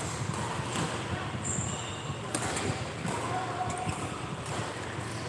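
Badminton rally: sharp racket strikes on the shuttlecock and players' footsteps on the court, several times over, echoing in a large sports hall.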